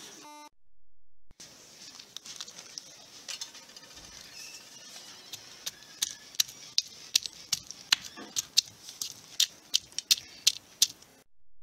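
Hard knocks of a hand-held stone pounding pieces of garlic or ginger on a flat rock to crush them, faint at first and then sharp and steady at about three blows a second from about six seconds in.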